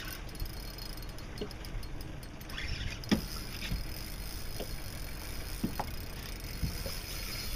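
Fishing boat on open water: a steady low rumble of wind and water around the hull. Over it come scattered light knocks and clicks, the loudest about three seconds in.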